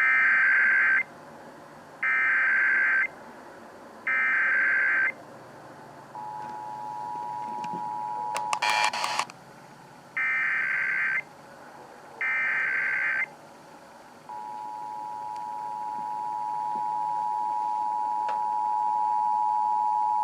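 Emergency Alert System tones over broadcast radio: three buzzy digital SAME header bursts, each about a second long and two seconds apart, then the two-tone attention signal for about three seconds. Two more header bursts follow, then the two-tone attention signal again, held for about six seconds. A short burst of static crackles near the end of each tone.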